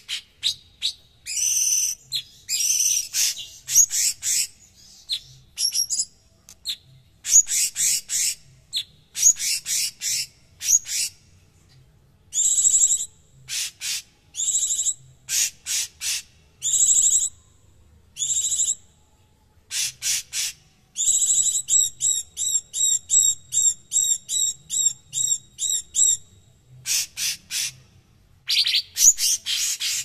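Cucak cungkok (a leafbird) singing a harsh, dense song of rapid chattering phrases and sharp repeated notes, with a quick series of identical notes about two or three a second from around 21 to 26 seconds in.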